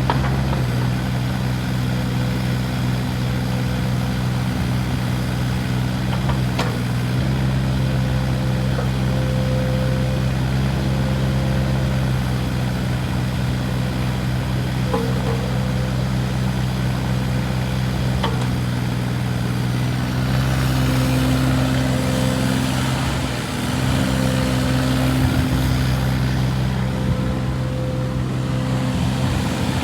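Volvo EC15E mini excavator's diesel engine running steadily, with a few faint clicks. About two-thirds of the way through, a rushing hiss joins and the engine note shifts slightly.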